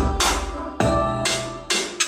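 Electronic-style music with a steady drum beat and heavy bass, played loud through a Mifa WildBox 60 W Bluetooth speaker as a sound test.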